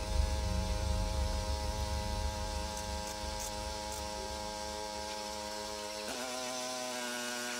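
Steady electric hum from a small motor. About six seconds in its pitch dips and the tone changes.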